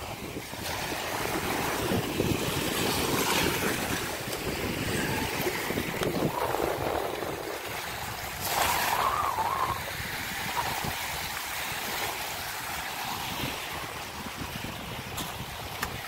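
Small waves washing up and breaking on a sandy shore, with wind buffeting the microphone. A short louder sound comes about halfway through.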